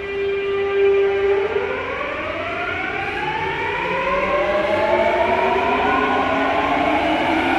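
Alstom GTO-VVVF inverter of a Busan Metro Line 2 train accelerating away: a steady tone that about a second and a half in breaks into several tones climbing in pitch together, a siren-like whine that grows a little louder as the train picks up speed.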